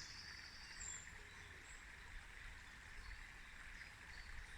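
Quiet outdoor ambience: a faint steady hiss and low rumble, with a few brief, faint, high bird chirps.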